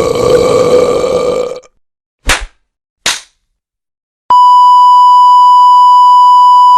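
A string of comedy sound effects: a harsh, rasping sound lasting about a second and a half, two quick sharp swishes, then a loud steady beep tone, like a censor bleep, starting just past halfway and holding.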